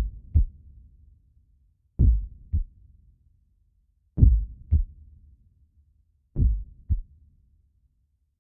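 Slow heartbeat sound effect: a low double thump (lub-dub) about every two seconds, with silence between beats.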